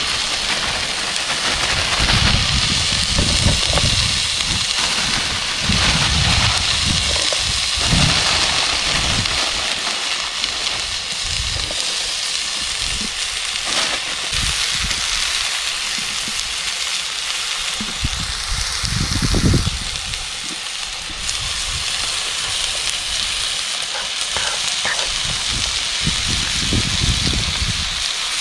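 Fillet steak and sliced mushrooms sizzling in a hot frying pan, a steady hiss throughout, with low gusty rumbles of wind on the microphone.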